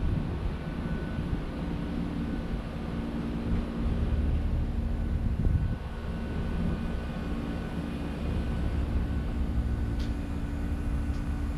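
Steady low hum from distant machinery, mixed with an uneven low rumble of wind buffeting the microphone.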